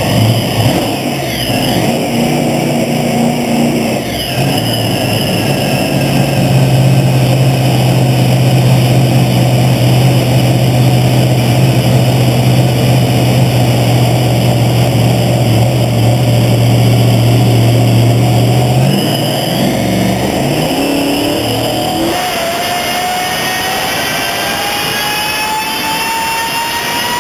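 PSI-blown 532-cubic-inch drag-racing engine running on an engine dyno. It holds a steady low drone for about fifteen seconds, which breaks off. Then a whine climbs steadily in pitch toward the end.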